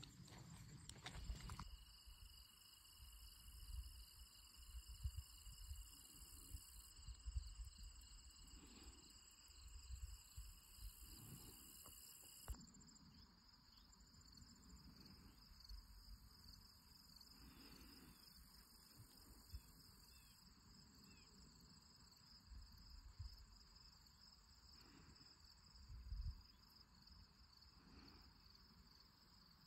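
Faint, continuous high trilling of insects, with soft low thumps now and then.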